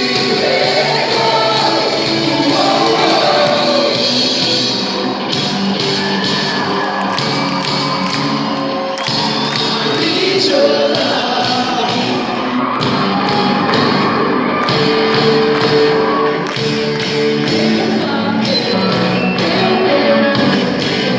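Live Christian worship band playing, with singing over the music.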